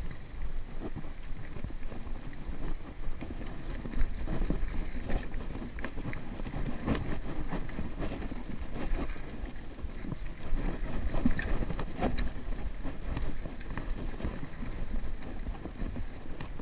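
Mountain bike rolling over a rocky dirt singletrack: a steady rush of wind on the microphone with frequent knocks and rattles as the bike goes over rocks, the sharpest about four seconds in.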